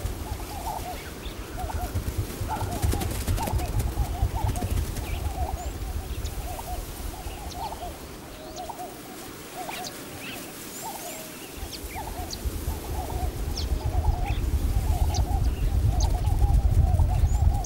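Birds calling, a steady run of short calls one after another at about the same pitch, over a low wind rumble that drops away for a few seconds in the middle and returns stronger near the end.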